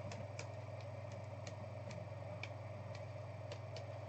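Faint scattered light clicks, irregular at about two to three a second, over a steady low hum.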